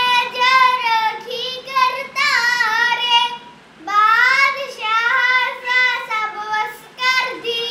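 A young boy singing a Sikh shabad (Gurbani hymn) solo and unaccompanied, in long melodic phrases with a short breath pause about halfway through.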